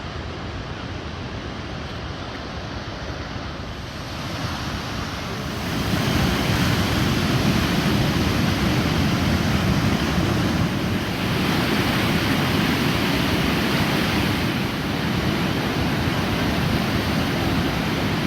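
Steady rush of flowing water from a river or waterfall, getting louder about five seconds in.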